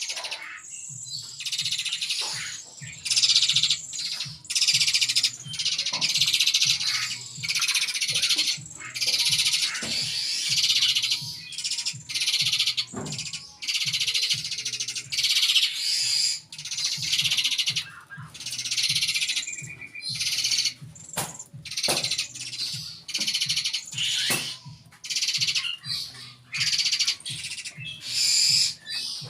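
Small birds chirping in rapid, high-pitched bursts a second or two long, broken by short gaps.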